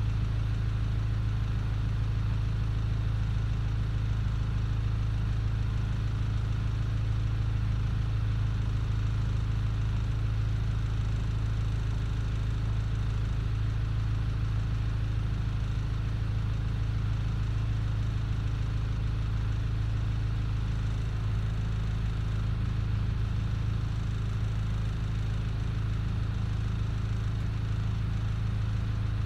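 Boat's engine idling steadily, an even low drone while the boat creeps in to dock.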